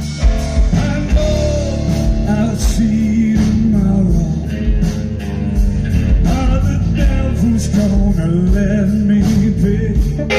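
Live blues-rock band playing loudly, with drums keeping a steady beat under electric guitar and keyboard.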